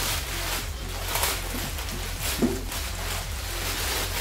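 Crumpled brown kraft packing paper crinkling and rustling as it is pulled off a wrapped part by hand, in a series of rustles.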